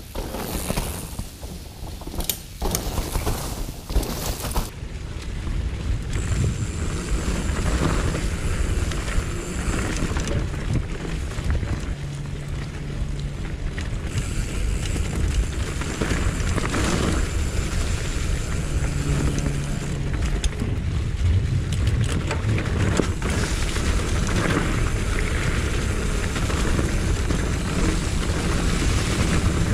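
Mountain bike being ridden over a dirt trail, heard from an action camera: wind rushing over the microphone, tyre rumble and the rattle of the bike over bumps. Several sharp knocks come in the first few seconds, then a steadier rush.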